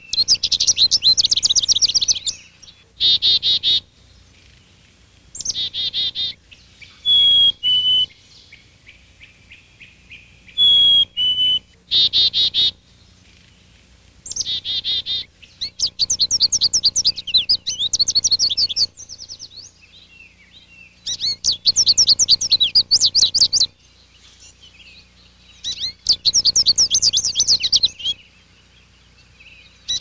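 Small songbirds singing: repeated phrases of rapid, high twittering trills, each a second or two long, with gaps between. Twice comes a clear two-note whistle that drops in pitch on the second note.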